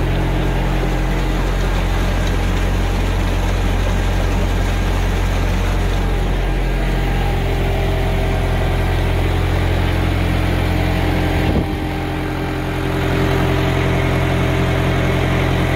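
Mahindra 575 tractor's diesel engine running steadily, driving a PTO generator that powers a 15 hp water-pump motor; the engine runs smooth and unstrained. A short click and a slight dip in level come about twelve seconds in.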